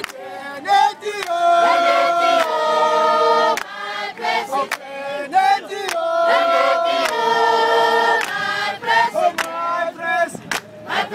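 A crowd of marchers singing together in harmony, men's and women's voices, with long held chords twice and sharp claps among them.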